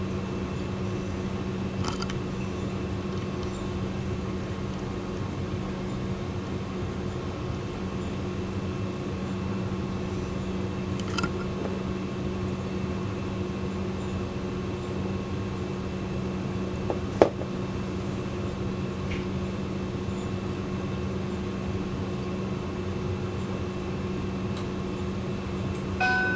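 Steady low electrical hum over room tone, with a few faint clicks and one sharp click about 17 seconds in. Right at the end a Linden triple chime mantel clock begins to chime.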